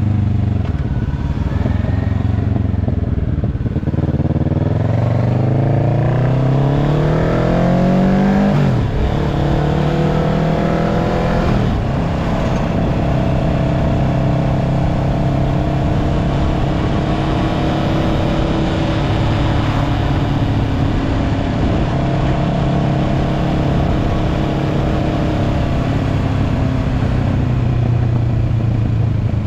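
Kawasaki Ninja 650 parallel-twin engine through an aftermarket slip-on muffler and link pipe, pulling with a rising pitch through a gear. The pitch drops sharply at an upshift about 9 s in, rises through another short pull and drops again at a shift about 12 s in, then the engine holds a steady speed.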